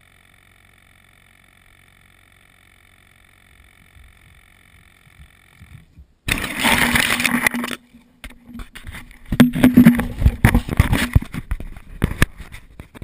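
Camera lying in grass: a faint steady hum, then about six seconds in a sudden loud rushing noise with a low steady tone that stops abruptly a second and a half later. After that come loud knocks, scrapes and rustling as the camera is handled and picked up.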